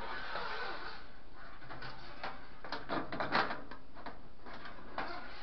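Handling noise in a clothes dryer's lint-screen slot as lint is fished out by tool and hand: a rustling haze, with a quick cluster of light knocks and scrapes about three seconds in and one more knock near the end.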